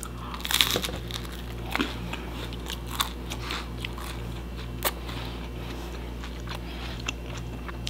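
Close-up chewing and biting of crispy homemade pizza crust, giving irregular crunches and crackles, mostly in the first five seconds.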